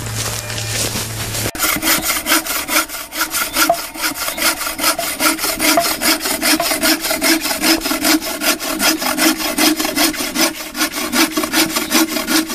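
A bow saw cutting through a wooden log by hand, with quick, even back-and-forth strokes starting about a second and a half in.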